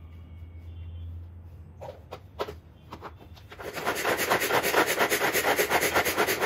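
Manual pull-cord food chopper being worked, its blades spinning with a fast, loud rattling whirr as it chops fresh parsley, starting about halfway through. Before that, a few clicks and knocks as the chopper is handled and its lid fitted.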